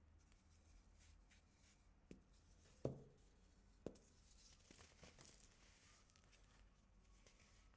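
Faint crunching and crumbling of compressed baking soda, with three sharp cracks about two, three and four seconds in, the middle one loudest.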